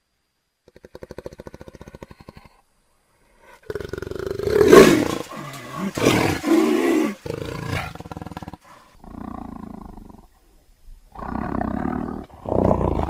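A big cat growling and roaring: a quiet, rapidly pulsing growl about a second in, then a series of loud roars from about four seconds on, the loudest just before five seconds, with shorter roars near the end.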